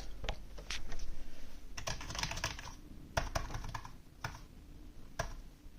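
Rii RK900 mechanical-feel gaming keyboard being typed on, its keys clicking in irregular bursts and single presses, not too clicky and not too loud, as the newly plugged-in keyboard is tested.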